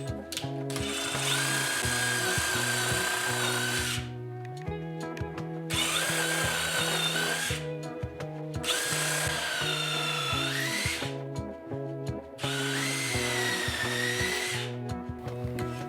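A small electric motor run in four bursts of two to three seconds each, its whine sagging and recovering as it takes load, over background music.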